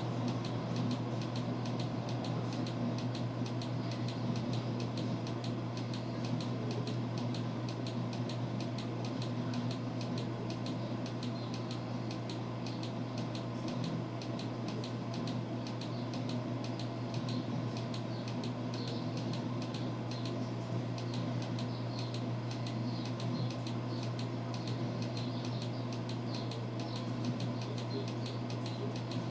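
Steady low hum with a faint, fast ticking over it: background room and equipment noise, with no speech.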